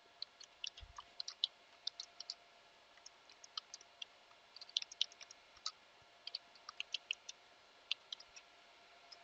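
Computer keyboard typing: faint, irregular quick key clicks with short pauses between runs.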